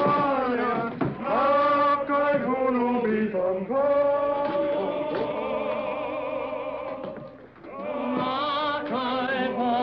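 Male voices singing together, a slow melody of long held notes with vibrato; the singing drops away briefly about seven and a half seconds in, then resumes.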